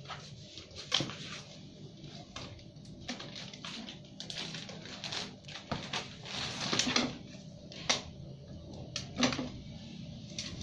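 Baby binturongs scrambling about at play: scattered clicks and knocks with rustling as they climb over a bag and a heap of clothes. There is a longer burst of rustling about six to seven seconds in, and sharp knocks about a second in and near the end.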